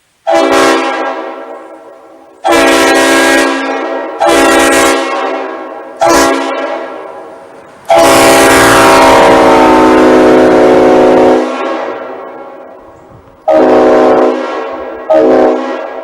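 Multi-chime air-powered train horn sounding seven loud blasts in a row. Most are short, with one long blast of about three and a half seconds in the middle, and each blast trails off in a fading echo.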